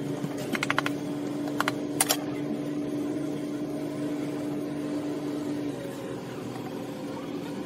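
Sharp clicks as lead-acid battery plates and a knife are handled: a quick run of clicks about half a second in and two more clicks around one and a half to two seconds. Under them a steady machine hum stops about six seconds in.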